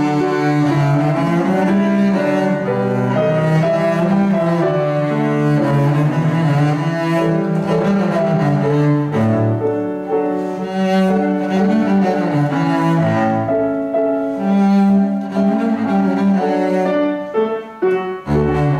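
Double basses bowed in several parts, playing sustained notes that change about once a second in a slow, continuous piece.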